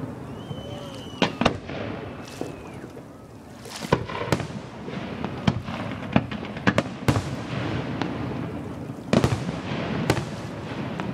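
Aerial fireworks shells bursting over a lake: about a dozen sharp bangs at uneven intervals, some in quick pairs, with a few brief whistles in the first three seconds.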